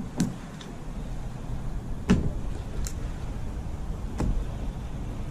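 Small waves lapping against a plastic kayak hull, with four short slaps, over a low rumble of wind on the microphone.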